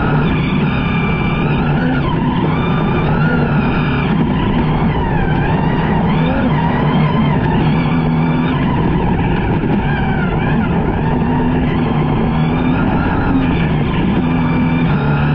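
Toyota Hilux DKR T1+ rally truck's twin-turbo V6 running hard at speed on a gravel track, its pitch rising and falling with throttle and gear changes, over steady tyre and gravel noise.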